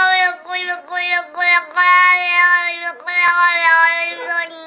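Cat meowing in a string of drawn-out, voice-like calls held at one high pitch. It comes in short choppy pieces for the first second and a half, then in two long held notes.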